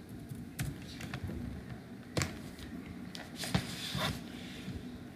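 A few scattered computer keyboard keystrokes, separate sharp taps, over a faint steady low hum.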